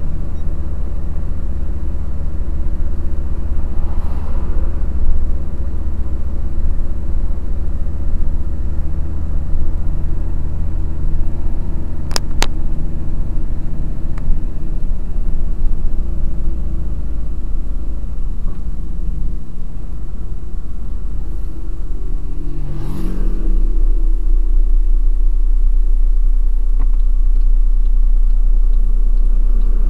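Truck engine running steadily while driving, a low drone heard from inside the cab, with road rumble. A brief sharp click about twelve seconds in. About two-thirds of the way through, the drone drops lower and gets a little louder.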